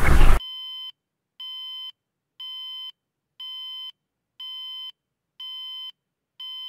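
A loud rushing noise cuts off abruptly, then an electronic beeper sounds seven steady high-pitched beeps, about one a second, each lasting about half a second.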